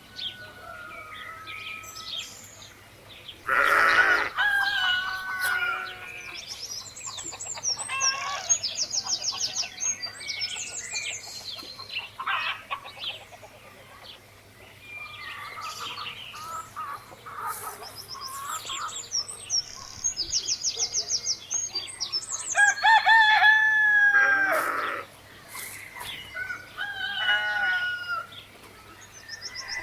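A rooster crowing twice, once about four seconds in and again near the end, with chickens clucking in between. Small birds chirp in quick, high, repeated trills throughout.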